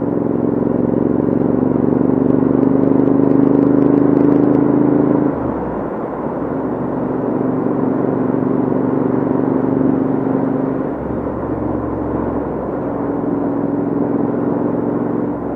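Royal Enfield Interceptor 650 parallel-twin with Hitchcocks headers and shorty silencers, running under steady throttle. The exhaust note climbs slowly, drops sharply about five seconds in as the throttle closes or a gear changes, then holds steady again and dips once more near eleven seconds.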